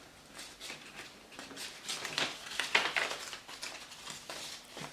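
A sheet of copy paper rustling and crinkling as it is folded and creased by hand, in a run of irregular rustles that is loudest about halfway through.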